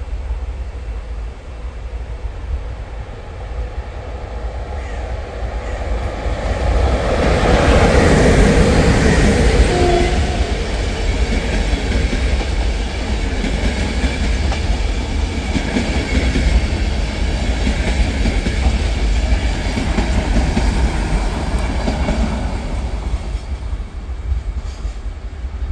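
Passenger train hauled by a 060-EA class electric locomotive rolling past, loudest about eight seconds in, its wheels clattering over the rail joints as the carriages go by, easing off near the end.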